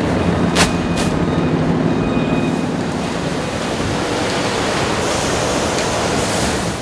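Steady loud machinery noise inside a sugar refinery, with two sharp clicks about half a second and a second in.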